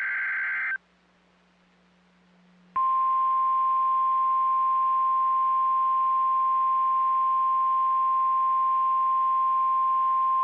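The tail of a NOAA Weather Radio SAME header data burst ends just under a second in. After about two seconds of faint hum, the 1050 Hz weather radio warning alarm tone starts and holds one steady, loud tone.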